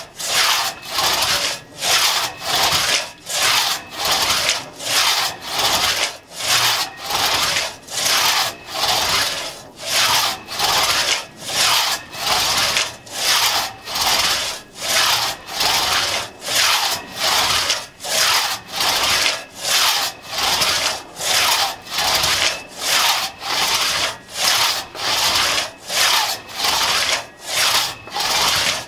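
A 4.5-foot Tuttle-tooth one-man crosscut saw cutting through a log by hand, in a steady rhythm of nearly two strokes a second.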